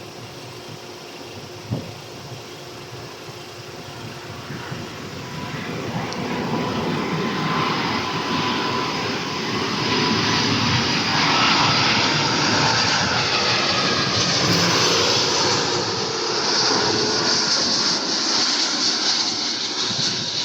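Jet airliner's engines growing louder as it approaches, swelling over several seconds into a loud, steady rushing noise with a faint whine in it.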